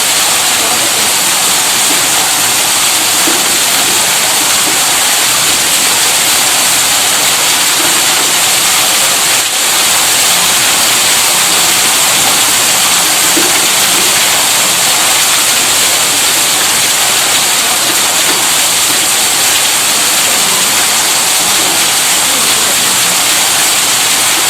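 Water gushing steadily from a tube-well electric pump's outlet: a constant, even rush of water with no motor hum standing out.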